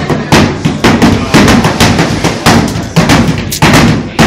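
Two roofers hand-nailing shingles with hammers: rapid, overlapping hammer blows driving roofing nails into a wooden roof deck, about three to four strikes a second.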